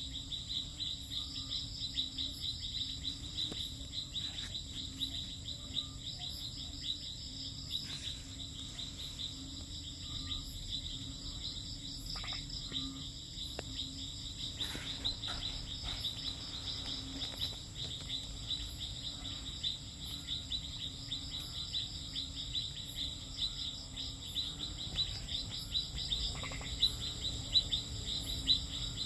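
A chorus of insects and frogs calling together. A rapid high insect trill runs on and on over a constant thin high whine, with a lower pulsing call beneath.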